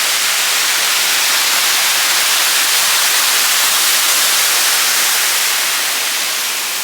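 Waterfall rushing close by: a loud, steady hiss of falling water that eases off slightly near the end.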